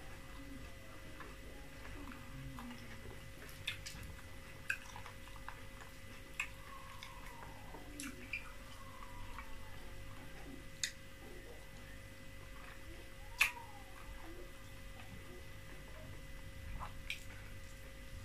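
Close-miked eating sounds of fufu and soup eaten by hand: sharp wet mouth smacks and clicks every second or few, the loudest about two-thirds of the way in, with soft chewing. A faint steady hum runs underneath.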